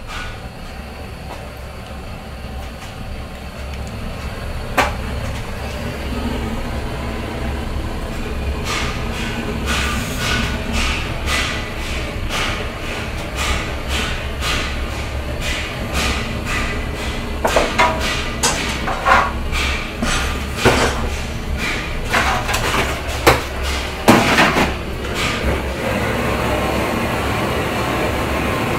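Handheld gas torch running with a steady rushing noise as it heats a silver cane cap, with a run of sharp clicks and knocks from about nine seconds in, the loudest a little before the end, after which the torch noise goes on alone.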